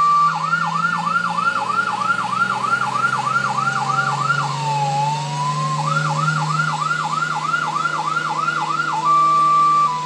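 Electronic fire-truck siren sound with rapid falling sweeps, about three a second. It pauses briefly in the middle on a slow low glide, then resumes, and near the end it switches to a steady two-tone high-low wail. A low steady hum runs beneath it.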